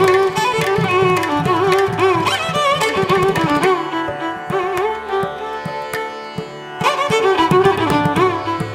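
Instrumental background music in an Indian classical style: a gliding melody over hand-drum strokes, the drums dropping out for a few seconds in the middle.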